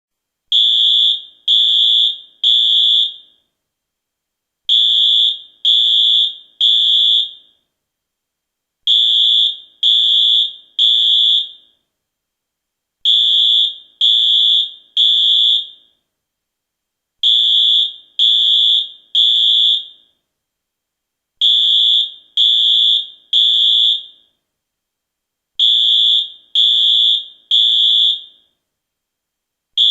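US fire alarm sounding the temporal-three evacuation signal: three short high-pitched beeps, a pause, then the three beeps again, repeating about every four seconds.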